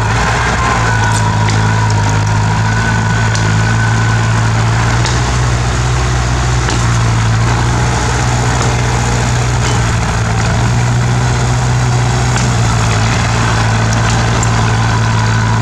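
A bulldozer's diesel engine running at a steady pitch, with a faint higher whine near the start and again near the end, and scattered light clicks.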